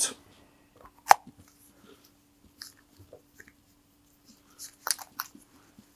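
Plastic clicks and rubbing as gloved hands handle a cut-down 10 cc plastic syringe and an airsoft hand grenade, fitting the syringe barrel onto the grenade's fuse. One sharp click comes about a second in, and a cluster of clicks near the end, over a faint steady hum.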